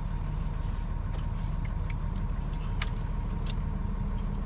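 Steady low rumble of an idling vehicle engine, with a few faint clicks scattered through it.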